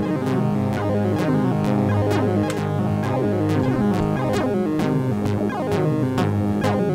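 Eurorack modular synthesizer patch playing a quantized pitch sequence spread across several oscillators by a Make Noise MultiMod. It sounds as a steady stream of short, sharply struck notes stepping between pitches over a low bass line.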